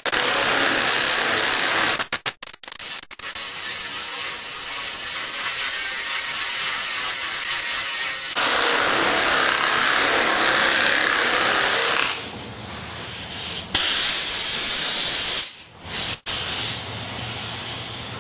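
Power tool cutting a welded-on piece of sheet metal off a car fender, a loud hissing run that stops briefly a couple of seconds in, picks up again, and eases to a lower level with short breaks near the end.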